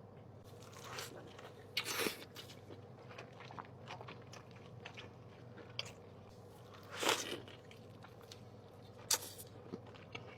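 Close-miked eating of a large burger: bites and chewing with small wet mouth clicks, and louder bites about 2 seconds, 7 seconds and 9 seconds in.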